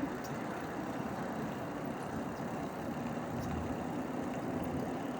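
Steady rolling noise from a bike ridden at speed: wind on the microphone and a low steady hum from its knobby tyres on the pavement.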